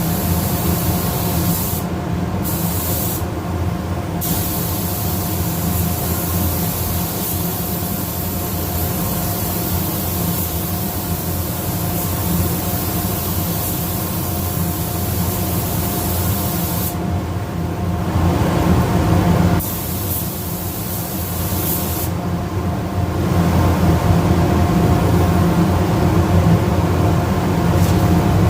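Paint spray gun spraying primer onto a car hood: a steady air hiss that stops briefly four times as the trigger is let off between passes, over a constant low motor hum.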